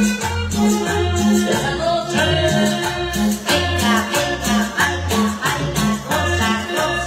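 Loud Latin dance music played over a sonidero sound system, with a steady bass beat about twice a second and a voice singing over it.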